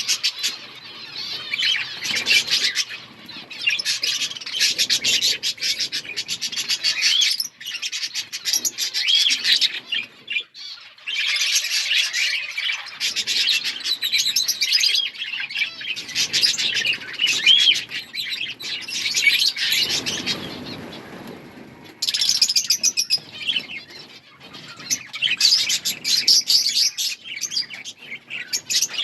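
A flock of budgerigars chirping together in a dense, continuous chatter, with a couple of brief lulls.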